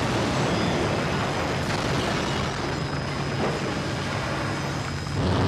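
Dramatized bomb-blast sound effect: a dense, steady roar with a low rumble underneath, swelling slightly near the end.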